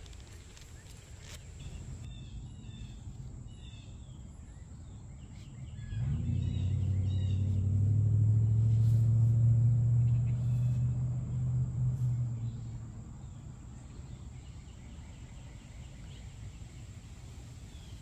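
Birds chirping outdoors, with a low, steady engine drone that swells in about six seconds in, becomes the loudest sound, and fades away about seven seconds later.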